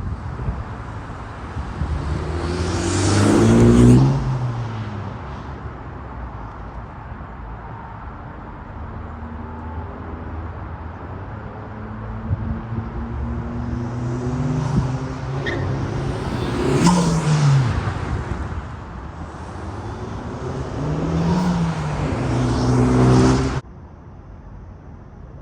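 Honda Civic Type R (FL5) 2.0-litre turbocharged four-cylinder, fitted with a K&N high-flow air filter, accelerating hard in three pulls, each rising in pitch and dropping back at the shift or lift. The sound cuts off abruptly near the end.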